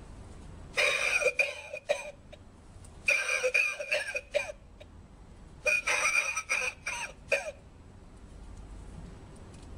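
Coughing lung-shaped novelty ashtray playing recorded coughing: three fits of coughs, each one to two seconds long, about a second apart.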